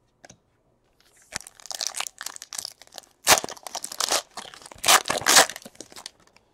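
A foil trading-card pack wrapper (2017 Panini Elite Extra Edition baseball) being torn open and crinkled by hand. It is a run of short ripping and crackling noises starting about a second in, loudest near the middle and again near the end.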